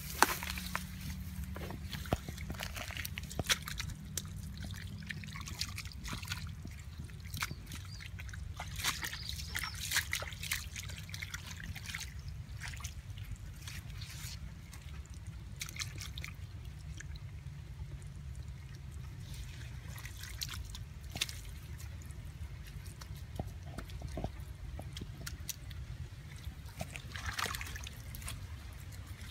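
Hands sloshing and splashing in shallow muddy water and wet mud, with many short, irregular splashes and drips over a steady low rumble.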